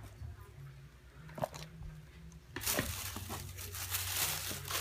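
A single light click, then, about halfway in, continuous paper crinkling and rustling as sneakers are handled out of their packaging.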